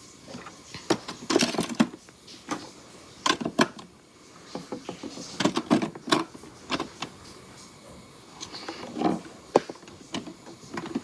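Small plastic cosmetic containers clicking and knocking together as they are handled and set into a mini fridge, in irregular bursts of light clatter.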